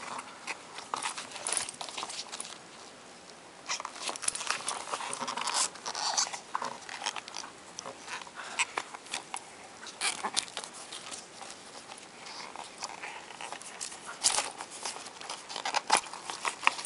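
Hands handling and squeezing the rubber face piece of a Type A-14 oxygen mask while pushing a microphone cord through a hole in it: irregular rubbing, rustling and small taps, with a quieter spell about three seconds in.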